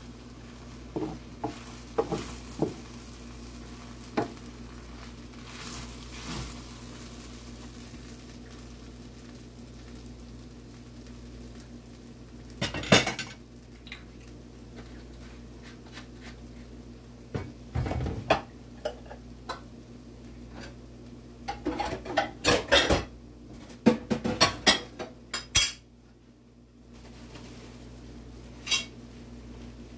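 A metal cooking utensil stirring and scraping fried rice in a pan, with occasional sharp clanks against the pan. The loudest clank comes about halfway through, and there is a quick run of clanks about three quarters of the way through, over a steady low hum.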